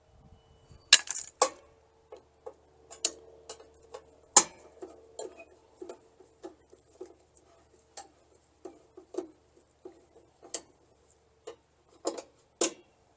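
Irregular sharp clicks and taps of an interior panel being unscrewed and lifted off, with a few louder knocks, over a faint steady hum.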